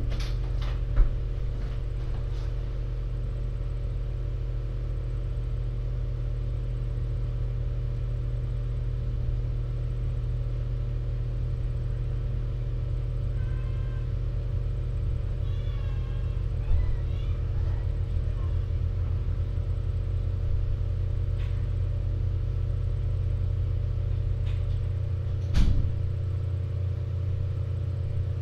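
Steady low hum of room machinery or electrical noise, with a few faint knocks. About halfway through come a few faint, high, wavering calls.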